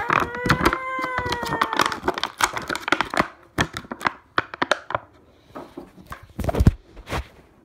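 A high, drawn-out vocal sound that slowly rises in pitch and stops about two seconds in. It is followed by clicks, taps and rustling of a hand handling the phone close to its microphone, with a heavy thump near the end as the lens is covered.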